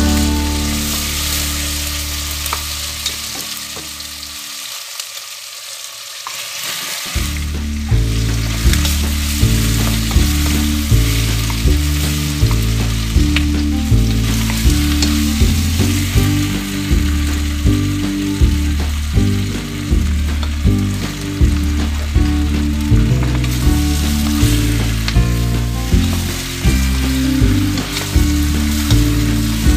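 Onions and squash chunks sizzling in a stainless steel pot while being stirred with a wooden spoon, under background music with a steady beat. The music drops out for a few seconds near the start, then comes back.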